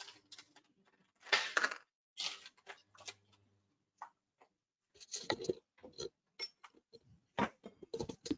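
Kitchen handling sounds: scattered light clicks, taps and clinks of utensils and cookware. They come in short bursts with dead gaps between them, and there are a few louder knocks in the second half.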